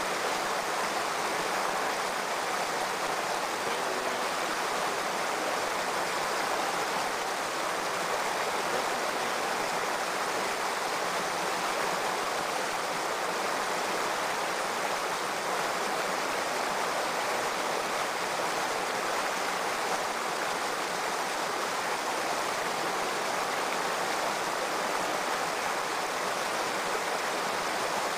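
A shallow stream running over rocks, with a steady, unbroken rush of water.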